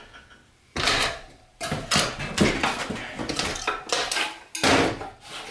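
Metal prying tools clinking and scraping against a moped's wheel rim in a string of sharp bursts as the tire is levered onto the rim.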